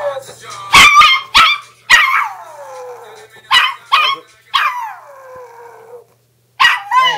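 Small dog barking in quick clusters, about nine barks, several of them drawn out into long howls that fall in pitch.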